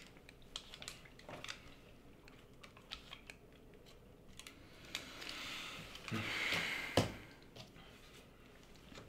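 Spoons clicking and scraping against small plastic cups of rice pudding while two people eat. There is a sharp click about seven seconds in, with a short breathy sound just before it.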